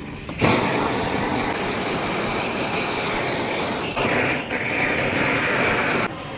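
Gas torch flame hissing steadily as it singes the hair off a cow's head; the flame starts about half a second in and cuts off near the end.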